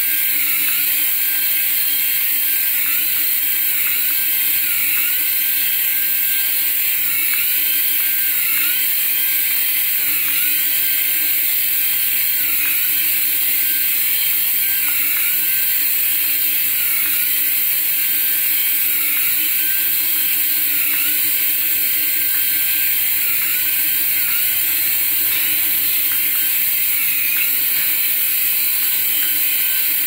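Small toy RC helicopter's electric motors whining steadily, with a buzz from the coaxial rotors over a loud high hiss.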